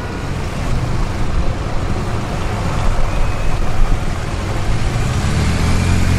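Police motorcycle engine running at low speed amid steady street traffic noise, with a steady low drone coming in near the end.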